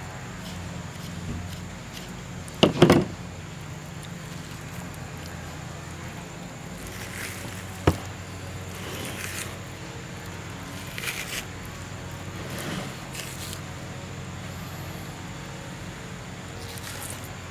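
Peeling the membrane off a raw rack of pork baby back ribs by hand on a plastic cutting board: soft scrapes and rustles of hands on meat, a loud double knock about three seconds in, and a single sharp click near eight seconds as the fillet knife is laid down on the table. A steady low background rumble runs underneath.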